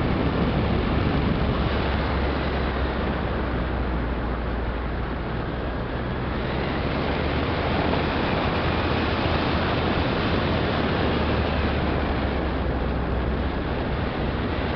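Steady engine, tyre and road noise heard inside a moving car's cabin, with a constant low hum underneath.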